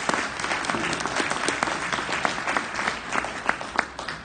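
Audience applauding, a dense patter of many hands with a few louder claps close by. It dies away near the end.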